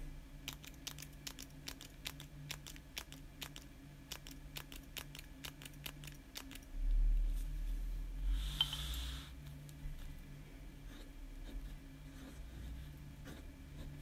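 Light plastic clicks, about three or four a second for several seconds, from the push button of a Staedtler Mars micro mechanical pencil being pressed over and over to feed lead through after a jam. About seven to nine seconds in there is a dull thud and a brief rustle of handling on the table, then a few scattered clicks.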